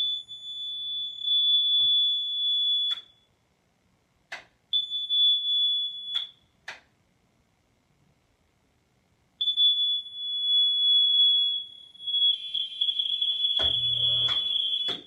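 DuPont AngelEye smoke alarm sounding a steady high-pitched tone in three long stretches, each cut off with a sharp click; it sounds while the light it is screwed into is switched off and stops when the light is switched back on. Near the end the tone turns rough, with a low knocking under it.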